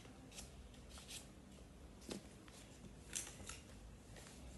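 Faint rustling and crackling of a folded paper boat being handled and pressed flat against a board, in a few short crinkles with the loudest about three seconds in.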